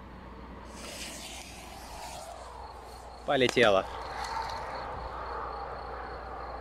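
Hiss of a firecracker fuse being lit with a jet-torch lighter, lasting about a second and a half.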